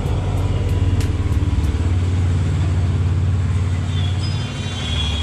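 A motor vehicle's engine running steadily with a low rumble, easing off about four seconds in.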